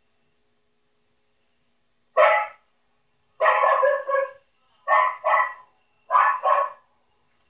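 A dog barking loudly in short bursts, mostly in quick pairs, starting about two seconds in.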